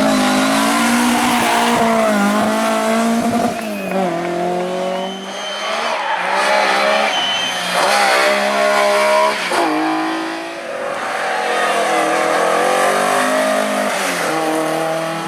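Rally car engine driven hard at high revs, its pitch climbing and then dropping back several times, at about 4, 5 and 10 seconds in, as the driver shifts gear or lifts off.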